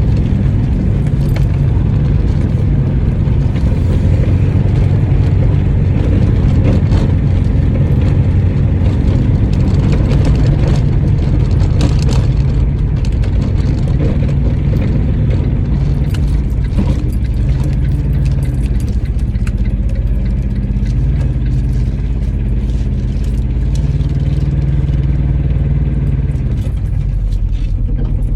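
Engine of a licence-free microcar (voiture sans permis) running, a steady low drone with scattered light clicks and rattles. The drone shifts a little partway through and drops slightly near the end.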